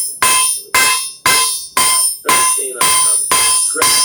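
Blacksmith's hammer striking on an anvil at a steady pace of about two blows a second, eight blows in all, each with a clear ringing tone.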